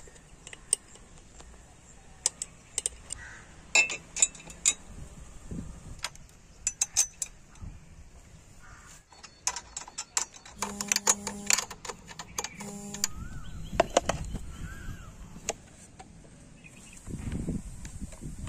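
Hand tools and small metal motorcycle parts clinking and tapping in scattered sharp clicks as parts are fitted. Twice near the middle comes a short buzzing tone.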